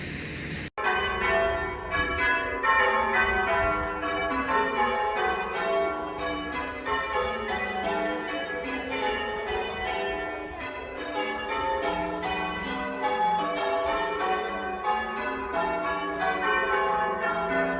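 Church bells ringing a peal: several bells struck one after another in quick, overlapping succession, each ringing on with its own pitch. A short stretch of noise cuts off just under a second in, as the bells begin.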